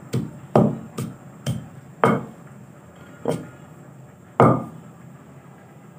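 Wooden pestle pounding green chillies and salt in a heavy stone mortar: about seven unevenly spaced strikes, the last, about four and a half seconds in, the loudest.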